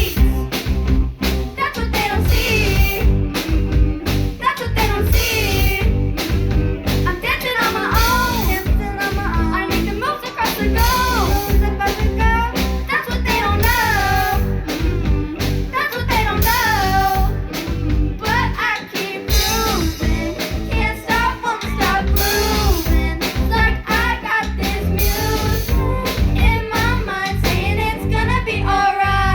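Live rock band playing a song: drum kit keeping a steady beat under a singing voice, with guitar and bass.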